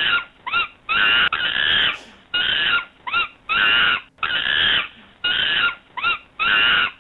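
Recorded monkey calls: about a dozen loud hoots in quick succession, longer and shorter ones alternating, some of the short ones sweeping sharply up and back down in pitch.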